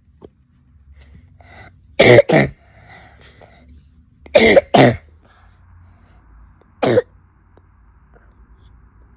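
A boy with asthma and allergic rhinitis coughing: two coughs about two seconds in, two more near the middle, and a single cough near the end. It is the barking 'seal cough' that comes with his illness.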